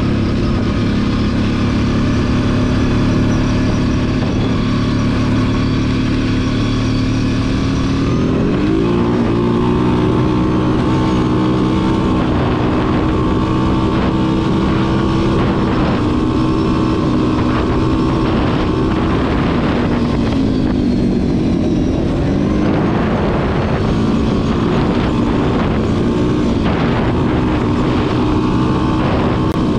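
Kawasaki KFX 700 quad's V-twin engine running under way. The pitch holds steady, climbs about a third of the way in and stays higher, then dips and rises again about two-thirds of the way through as the throttle comes off and back on.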